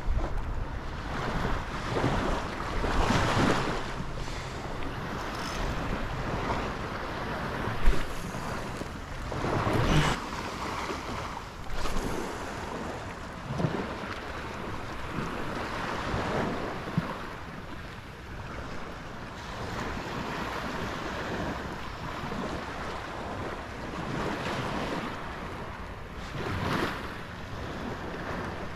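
Small surf waves washing and lapping around the shallows, swelling every few seconds, with gusty wind buffeting the microphone. A few short sharp clicks stand out, the loudest about a third of the way in.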